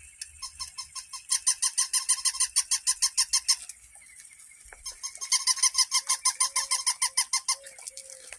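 Walking toy puppy giving rapid, very regular squeaky chirps, about ten a second, breaking off for about a second near the middle and then starting again.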